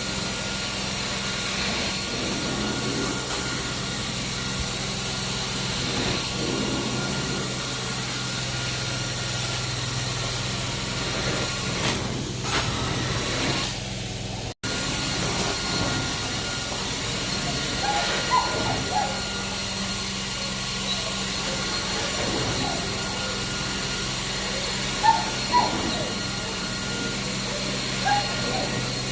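Carpet cleaning extractor running steadily, a hum with a hiss of spray and suction as the cleaning wand works the carpet. A few short, high squeaks come in the second half.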